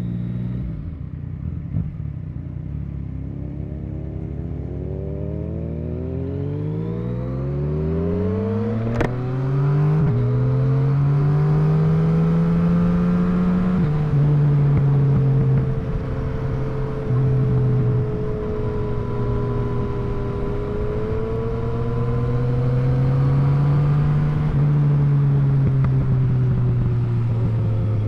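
Yamaha MT-09's inline-three engine under way: low and steady at first, then climbing in pitch as the bike accelerates. Two upshifts each drop the revs sharply, and after them the engine settles into a steady cruise with the revs gently rising and falling.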